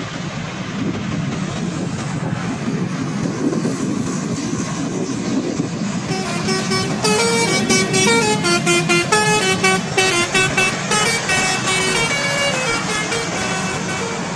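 Steady engine and road noise of a passing bus, then about six seconds in a bus's multi-tone telolet horn plays a quick tooting melody of short notes at changing pitches, stopping shortly before the end.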